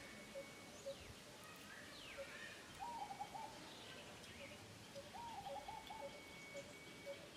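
Faint bird calls: a short note repeating about twice a second, with two quick runs of rising-and-falling notes, one about three seconds in and one about five seconds in.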